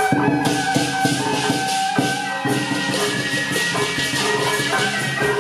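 Taiwanese temple-procession music: a large hanging gong on a percussion cart struck with a beater, under a pitched melody and a dense wash of jangling metal percussion.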